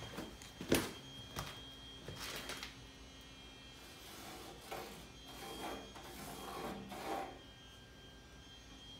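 Faint scratchy strokes of a marker being drawn across sheet steel as the outline of a patch panel is traced, with a sharp click a little under a second in.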